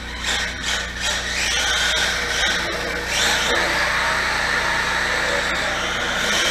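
Brushless electric motor of a 1/16 4WD mini rally car whining, rising and falling with the throttle, as its tape-wrapped tyres slide and skid on the hard floor.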